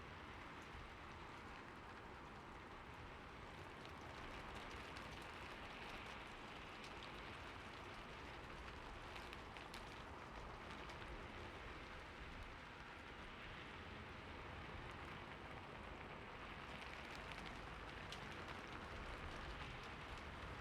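Soft, steady rain falling on city surfaces, an even hiss with scattered fine drop ticks.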